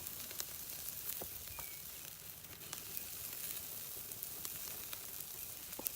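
Meat sizzling on a charcoal grill: a steady frying hiss with frequent small pops and crackles.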